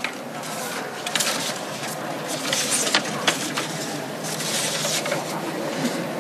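Ambience of a large hall: a steady murmur with faint, indistinct voices and a few small clicks and knocks, such as papers or a microphone being handled.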